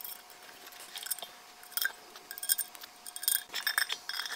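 Light, irregular metallic clinks and taps of bolts and nuts being handled and fitted where a pedestal fan's pole meets its metal base, with a few sharper clinks in the second half.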